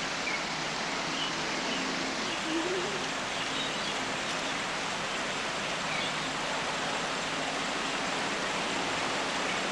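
Steady outdoor background hiss with a few faint high chirps, likely small birds.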